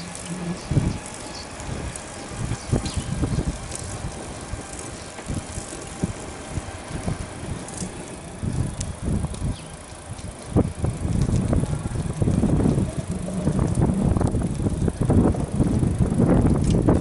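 Bicycle in motion: an uneven low rumble of wind and road noise on the microphone, with scattered light rattling clicks, getting louder about eleven seconds in.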